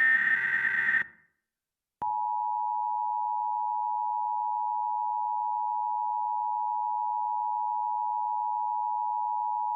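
Emergency Alert System signalling: the last of the SAME header data bursts, a harsh electronic buzz lasting about a second, then after a second's gap the EAS two-tone attention signal, a steady dual tone that starts about two seconds in and holds without change. This sequence marks the start of a new emergency alert.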